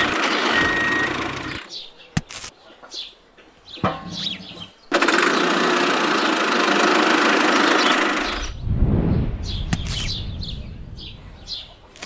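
Tractor engine sound running steadily, cutting out for about three seconds in which a few clicks and bird chirps are heard, then running again. Near the end a low rumble swells and fades among more bird chirps.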